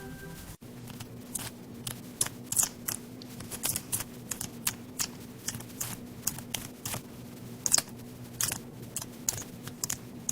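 A chick pecking at food: quick, irregular sharp taps, a few a second, over a low steady hum.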